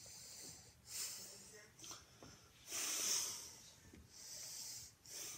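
Close, noisy breathing: a series of breaths in and out about a second apart, the loudest about three seconds in.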